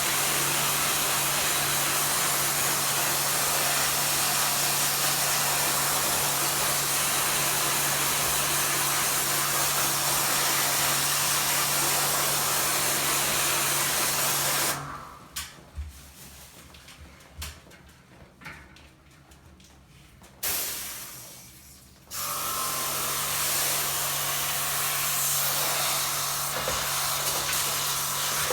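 High-pressure washer running, its pump humming steadily under the hiss of the water jet spraying into an air conditioner. Past the middle it stops for several seconds, with only a few clicks and knocks, then starts again.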